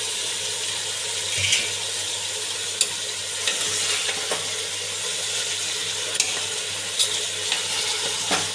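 Mutton and spices sizzling in oil in an aluminium pressure cooker, a steady hiss, with a few light clicks of a utensil against the pot as the contents are stirred.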